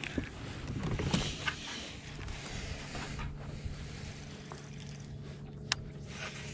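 Baitcasting rod and reel being cast and handled, with small clicks and rustles and one sharp click about five and a half seconds in, over a steady low hum.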